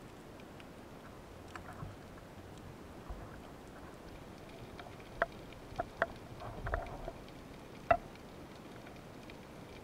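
Underwater sound: a steady faint hiss with scattered fine crackling ticks, and a handful of sharp clicks and knocks in the second half, the loudest near the end, from the diver handling the speargun, wire fish stringer and speared fish.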